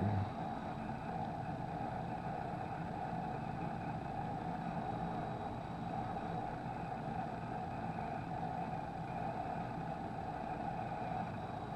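Steady droning background hum that holds an even level, with no distinct clicks or events.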